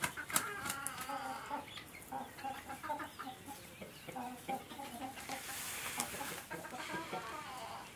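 Brahma chickens clucking: a steady run of short, repeated clucks.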